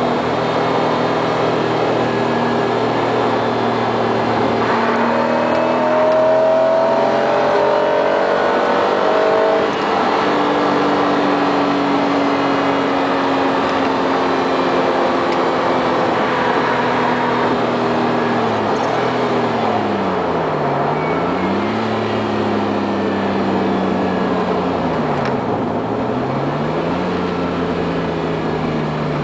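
Honda NSX's V6 engine with an aftermarket exhaust, heard from inside the cabin under way: the engine note climbs as the car accelerates, drops sharply about ten seconds in, holds and slowly eases, then twice falls and climbs back again in the last third.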